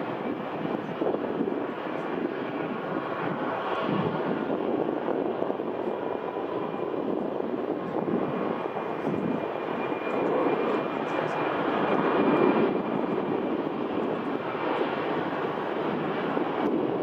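Distant jet airliner engine noise, heard as a steady rushing hum with a faint high whine in it, swelling a little in the middle.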